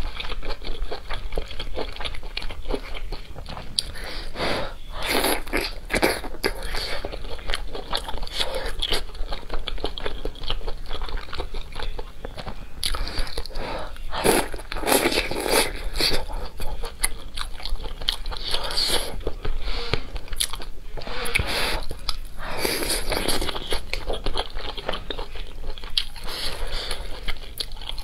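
A person eating close to the microphone: biting and chewing food from a bowl of spicy soup, with many short, irregular crunches and mouth sounds.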